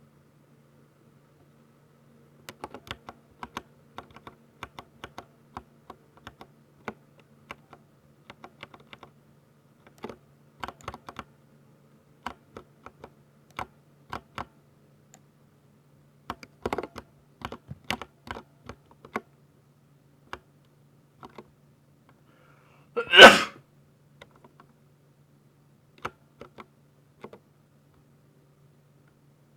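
Typing on a 60% mechanical keyboard with Ducky silver switches: irregular runs of sharp key clicks, some in quick bursts and some single strokes with pauses between. About two-thirds of the way through comes one much louder, short burst of noise.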